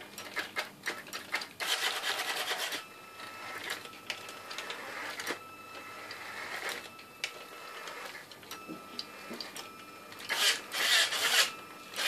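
Geared drive motors of a homemade robot vacuum on a toy-car chassis whirring in several short bursts as it is steered by keyboard commands, with light ticks in between.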